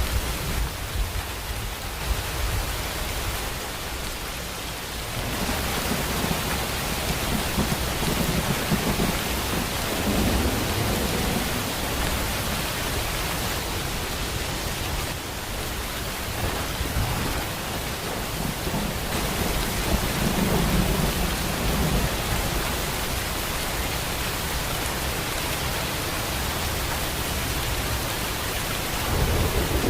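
Heavy, steady rain, with low rumbles of thunder swelling now and then.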